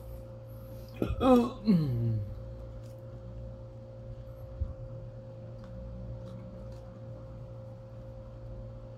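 A steady hum with a constant tone above it; about a second in, a person gives a short vocal sound that falls in pitch.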